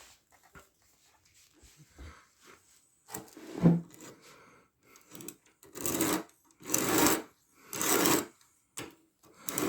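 A 120-grit diamond sharpening stone on a guided knife sharpener rasping along a knife blade in three even push strokes about a second apart, starting about six seconds in. Before that come faint clicks from handling the sharpener.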